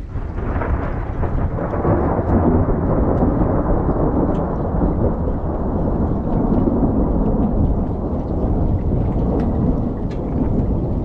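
Hailstorm: hail pelting down in a loud, steady, dense roar, with scattered sharp ticks of single stones striking.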